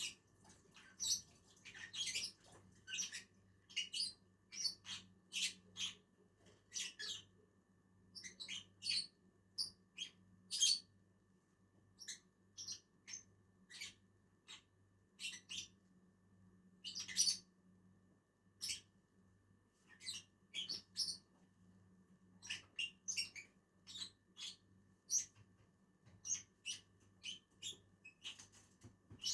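Lovebirds giving short, high-pitched chirps at irregular intervals, one or two a second, sometimes in quick runs, over a faint steady low hum.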